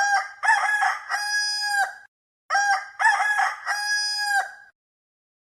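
A rooster crowing twice: two full cock-a-doodle-doo calls of about two seconds each, each ending in a long held note.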